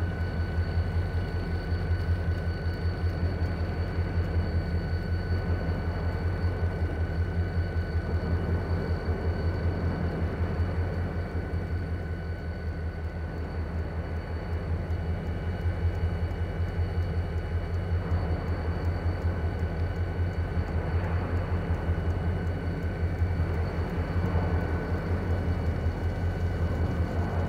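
Diesel-electric locomotives idling: a steady low engine drone with a fast, even throb and a thin steady whine above it.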